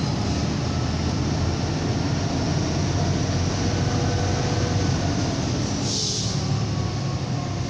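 Scania 113's 11-litre straight-six diesel running steadily, heard from inside the cab while held in third gear on a long downhill to brake the truck on the engine. A short hiss comes about six seconds in.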